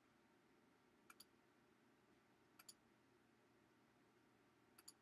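Faint computer mouse clicks: three quick pairs of clicks, spaced about a second and a half apart, against near silence.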